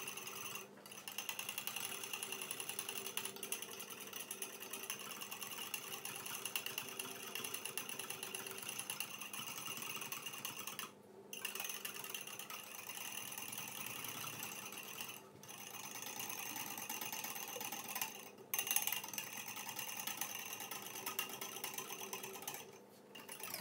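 Metal spoon beating instant coffee, sugar and water rapidly against a small ceramic bowl, whipping it into dalgona coffee foam by hand: a fast, steady clicking rattle broken by a few brief pauses.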